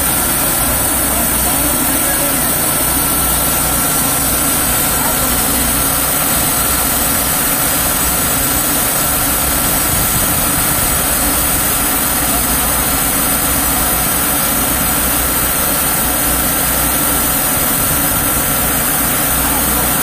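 Wood-Mizer LT35 hydraulic portable sawmill's engine running steadily at a constant level.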